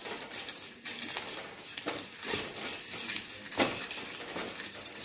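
Steel spoon stirring and scraping grated coconut, dried red chillies and whole spices as they dry-roast without oil in a metal kadai. It gives irregular scrapes and dry rattles.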